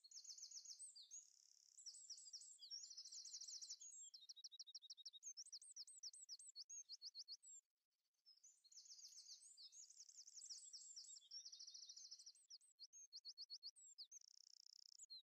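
A songbird singing two long songs made of fast trills and quickly repeated high notes, with a short break between them about eight seconds in.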